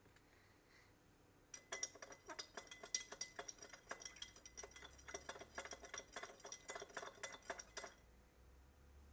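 A cocktail being stirred in a glass, the spoon clinking rapidly and irregularly against the glass with a faint ring. It starts about one and a half seconds in and stops about a second before the end.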